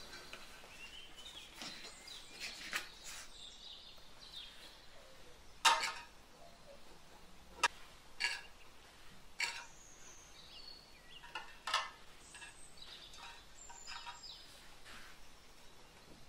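A metal spoon tapping against clear plastic dessert cups as crumbled cake is spooned in: about half a dozen sharp clicks, loudest a little over five seconds in.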